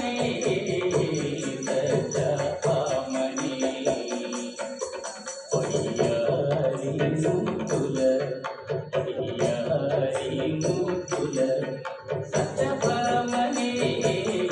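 Kuchipudi dance music: a voice singing a wavering melody over drums and jingling percussion in a steady rhythm, the drumming thinning out briefly about four seconds in before coming back in full.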